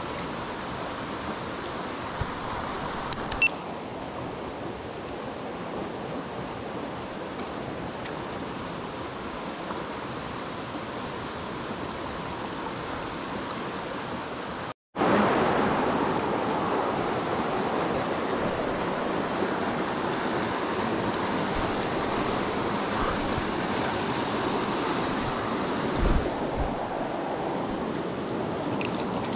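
Steady rush of flowing water from a small mountain stream. After a brief break about halfway through, the water is louder.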